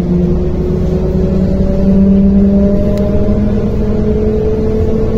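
MAZ-105 articulated city bus running along the road, heard from inside the passenger cabin: a steady low rumble with an engine and drivetrain hum that rises slowly in pitch as the bus gathers speed.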